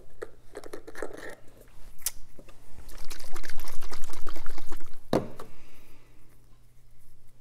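Small measure of liquid plant nutrient poured from a plastic measuring cap into a plastic jug of water, trickling into the jug for about two seconds. Before it there are light clicks of plastic caps being handled, and just after it there is one sharp knock as something is set down on the counter.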